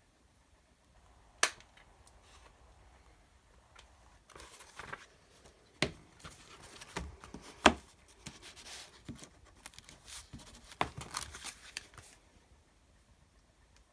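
Paper being handled: rustling and tearing sounds, with a few sharp taps or knocks in between.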